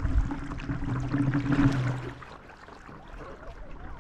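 Water splashing and lapping around a stand-up paddle board as it is paddled, with a steady low hum through the first two seconds that then stops.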